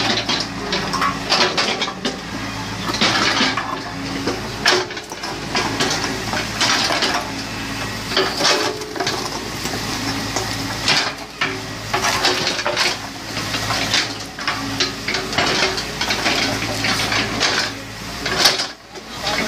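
Excavator's engine running steadily under frequent clanks, rattles and scraping from its bucket and arm at work.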